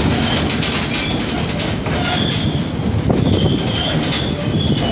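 Passenger train rolling along the track, heard from an open-air car: a steady rumble of wheels on rails, with short, repeated high-pitched squeals from the wheels.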